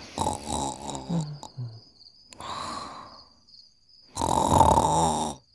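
Cartoon snoring: a low pitched snore, then two breathy exhales, the second louder, with a thin high whistle held between them.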